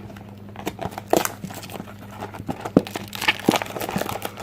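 Plastic shrink-wrap on a sealed trading-card box crinkling and tearing as it is ripped off, in irregular crackles and snaps.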